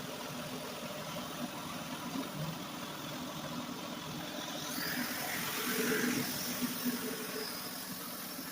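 An engine running steadily, with a louder, brighter stretch from about five to seven seconds in.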